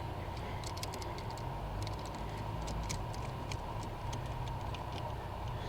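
Faint, irregular small clicks and ticks of hand work as a rubber heater hose is pushed onto a brass tee fitting, over a steady low background hum.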